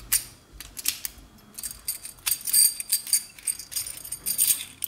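Metallic clicking and light jingling as a dimple key and a Santos 725P euro lock cylinder are handled, with a quick run of clicks and ringing from about two seconds in.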